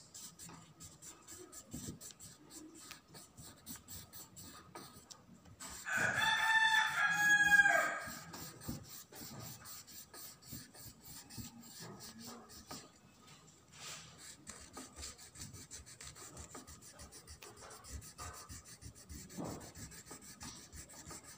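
A crayon rubbed quickly back and forth over paper, a rapid run of faint scratchy strokes. About six seconds in, a loud high-pitched call lasts about two seconds over it.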